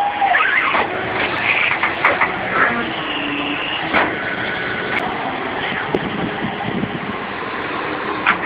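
Tow truck running while its wheel-lift works, a steady noise with a few short squeaks and occasional sharp clicks and knocks.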